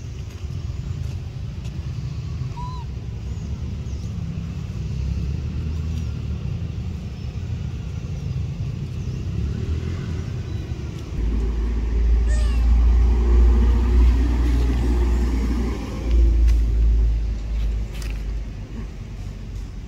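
Steady low rumble of outdoor background noise, growing louder about eleven seconds in and easing off near the end, with a few faint high chirps over it.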